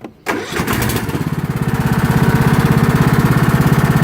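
Toro LX420 lawn tractor engine starting up about a third of a second in, then running with an even rapid pulse that builds over the first two seconds and holds steady.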